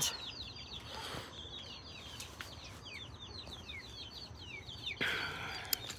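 Birds chirping: many short, falling chirps in quick succession, thinning out near the end, with a brief rustle about five seconds in.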